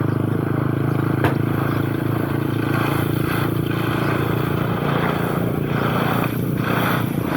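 Engine running steadily, with a sharp click about a second in.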